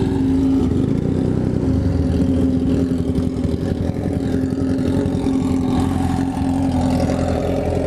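Motorcycle engines idling at a standstill: a steady, deep drone with a fast pulsing beat and no revving.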